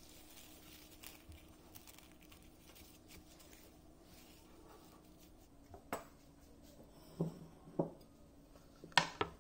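Thin plastic cling film faintly crinkling as it is stretched and pressed over a plate, then a few light knocks of dishes handled on a wooden worktop, the loudest a double knock near the end.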